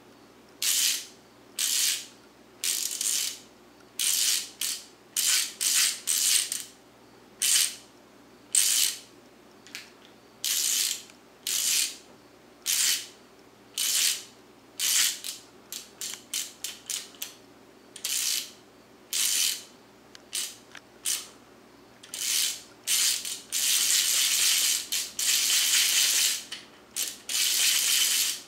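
Husky socket ratchet's pawl mechanism clicking as the ratchet is twirled round on its extension, in short rasping spurts about once a second or two. About four fifths of the way through the spurts run together into a longer, almost unbroken stretch of clicking as it spins faster.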